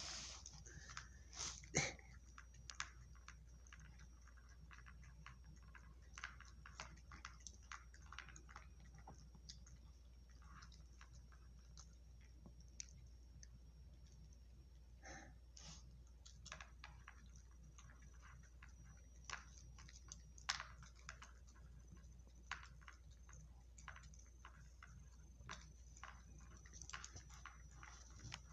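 A dog eating from a plastic bowl: faint, irregular crunching and clicking as it chews, with a few louder clicks scattered among them, the loudest about two seconds in.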